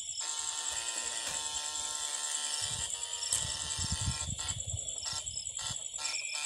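Steady electric buzz with a high whine from a battery eel-shocking rig, its two probe poles live in the water. Low sloshing thumps of wading come in around the middle.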